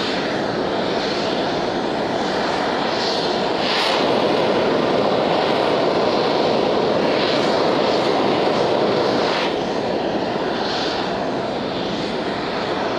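Steady rushing roar from SpaceX's Starship Booster 7 on the launch mount as it vents gas after an unexpected ignition at its base, with a few brief sharper hisses.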